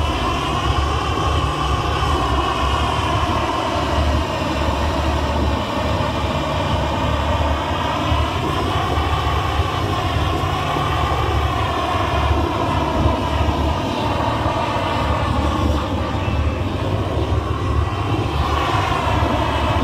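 Propane torch burning with a steady jet of flame against wood, a loud continuous rush with a hum whose pitch drifts slowly up and down.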